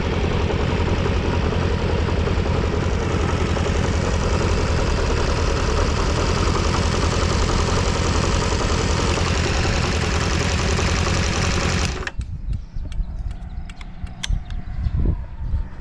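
Kawasaki GPZ400R's four-cylinder engine running steadily at idle, which the seller calls free of abnormal noise. About twelve seconds in it shuts off suddenly, leaving scattered clicks and knocks.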